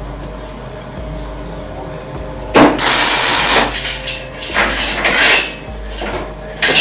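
MIG welder arc crackling in short tack welds on steel chain links: one harsh burst of about a second, then several shorter ones.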